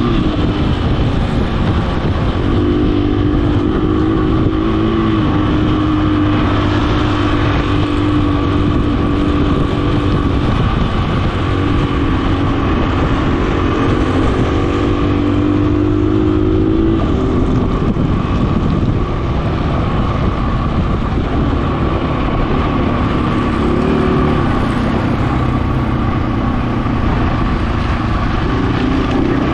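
A vehicle engine running continuously, its pitch rising and falling as the revs change, over a steady rushing noise and a steady high whine.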